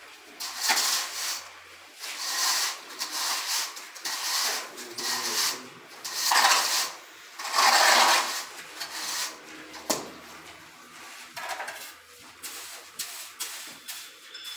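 A long metal screed bar dragged back and forth over damp cement-sand mortar to level a subfloor: a series of rasping scrapes, each about half a second to a second long. It thins out in the later part, with a single sharp tap about ten seconds in.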